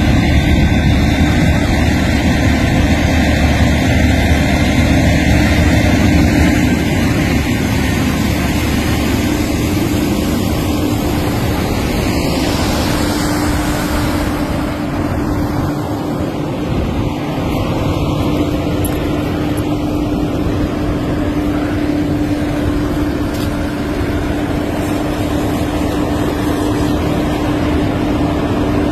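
Fire engine running steadily, feeding its hose lines, with one constant hum under a loud hiss and rumble that eases a little about halfway through.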